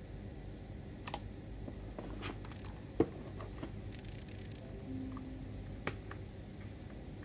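Scattered clicks and taps of a mechanical keyboard being pressed and handled, a few light key clicks with one sharp click about three seconds in.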